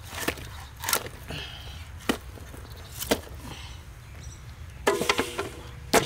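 Large wallago catfish being cut into steaks on a bonti, a blade fixed upright on a wooden board: sharp chopping knocks about a second apart as the fish is pressed down through the blade onto the board.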